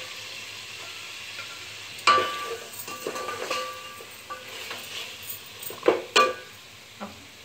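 Wooden spatula stirring cooked mutton in an aluminium pressure-cooker pot, with scraping and a soft sizzle. Sharp ringing metal knocks come about two seconds in and twice in quick succession around six seconds.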